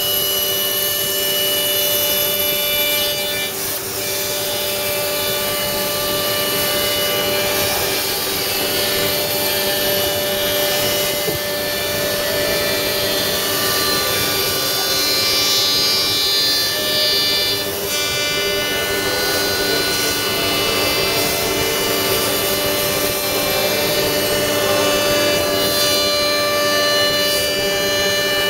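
FK-103ATC-A-DH CNC router's spindle whining steadily while its bit routes a wood door panel, with a continuous rasp of cutting.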